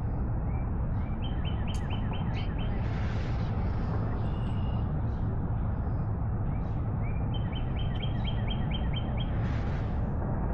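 A songbird sings twice, each song a rising lead-in note followed by a quick, even series of about eight short high notes. A steady low rumble runs underneath.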